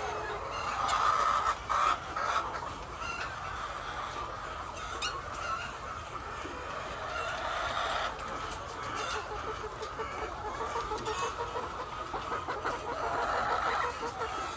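Flock of chickens clucking, many birds calling over one another without a break.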